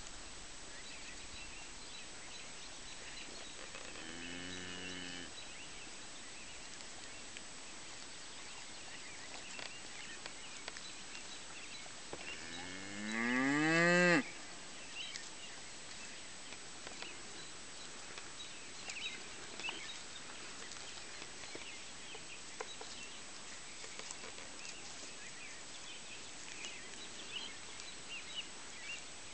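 Highland cattle mooing twice: a short call about four seconds in, then a longer, louder moo that rises in pitch and cuts off sharply about fourteen seconds in.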